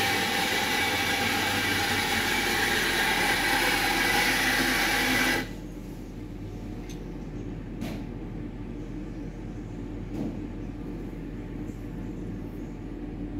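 Electric espresso grinder running for about five seconds, grinding beans into a double-shot portafilter basket, then cutting off suddenly. A few faint taps follow.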